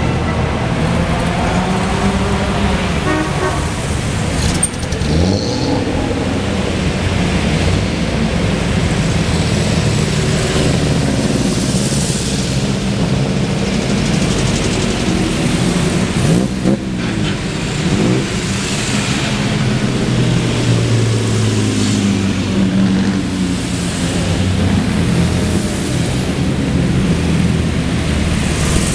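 Classic sports cars drive past one after another with their engines running. The engine pitch rises and falls as each car revs and goes by, over a steady rumble of traffic.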